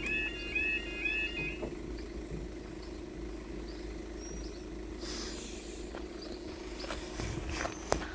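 Level crossing yodel alarm warbling in a repeating stepped-tone pattern, then stopping about two seconds in once the barriers are fully down. A steady low hum carries on after it.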